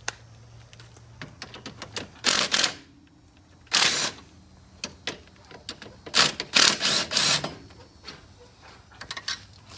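Ratchet with a 15 mm socket clicking in three short runs of rapid clicks, the last and longest about six seconds in, as the brake caliper bolts are turned out. Scattered light clicks and metal taps come between the runs.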